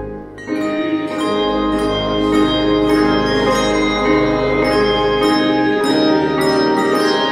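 Handbell choir ringing a hymn tune, many bells struck together in chords and left to ring, after a brief pause right at the start.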